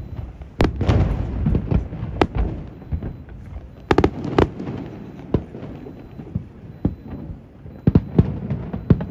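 Fireworks display: an irregular run of sharp shell bangs and crackles, each with an echoing tail. Clusters of louder bangs come about a second in, around four seconds in, and again near the end.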